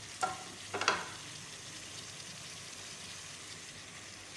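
Chicken pieces, chopped tomatoes and green chillies sizzling steadily in hot ghee and oil in a karahi, the tomatoes just added. Two short sharp knocks sound in the first second, the second one louder.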